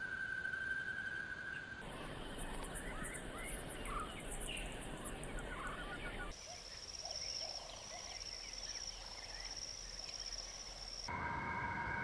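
Birds calling, in a run of separate clips, so the sound changes abruptly every few seconds. A dense flurry of short chirps and cackling calls sits between stretches of a steady high tone.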